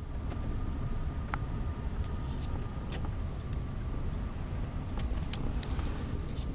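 Road and engine noise inside a moving car's cabin: a steady low rumble with scattered small clicks and rattles.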